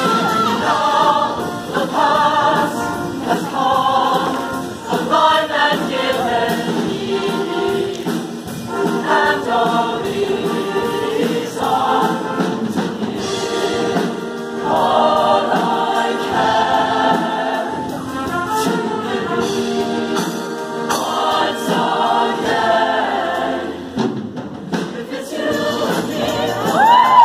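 Mixed-voice show choir singing together, with a brief break in the sound a few seconds before the end.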